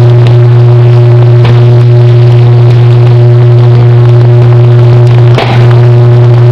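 Loud, steady, deep electrical buzz of a sustained short-circuit arc on mains power equipment, with an even series of overtones. Brief crackles break through about a second and a half in and again near the end.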